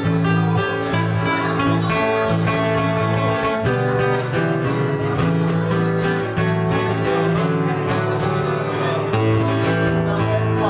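Instrumental break of a sertanejo raiz song played on two acoustic string instruments, a viola caipira and guitar, plucked and strummed in a steady rhythm with no singing.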